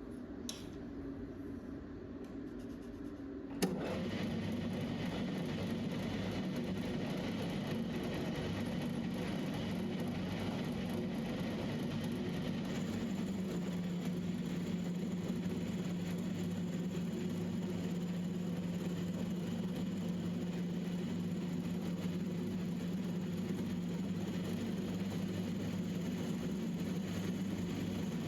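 Metal lathe switched on with a click about three and a half seconds in, then running steadily with a level machine hum.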